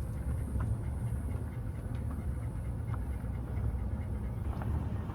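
Car driving with a window open: a steady low rumble of wind buffeting and road noise.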